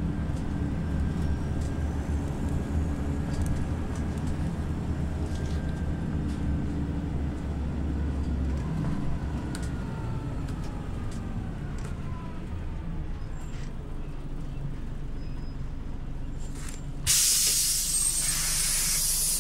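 Scania OmniLink CL94UB city bus: the engine hum and a falling whine die down as the bus slows. About two seconds before the end, a sudden loud hiss of compressed air is let out.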